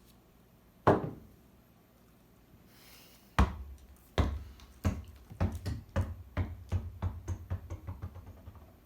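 Two sharp single knocks a couple of seconds apart, then a run of thumps about three a second that gradually fade away.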